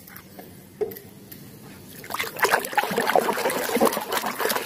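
Water sloshing and splashing as a hand scrubs a muddy plastic toy in a tub of water. It begins about two seconds in, after a quiet start with a single light knock.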